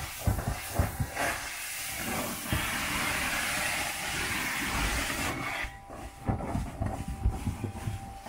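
Carpet-cleaning extractor's stair tool spraying and suctioning carpeted stairs, a steady hiss that cuts out about six seconds in. Low knocks follow the cut-out.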